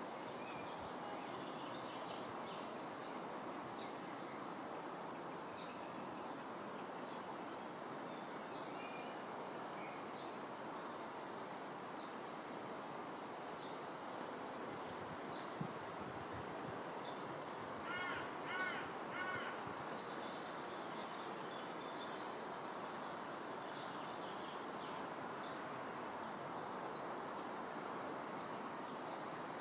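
Steady outdoor background hiss with scattered faint small-bird chirps; about two-thirds of the way through, a bird gives three harsh calls in quick succession.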